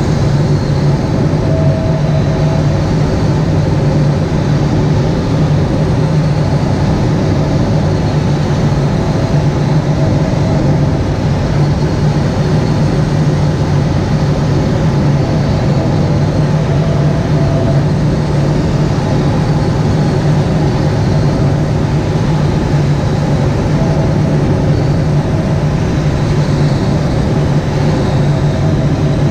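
Steady drone of an aircraft engine with a constant rush of air, heard from inside a glider's cockpit.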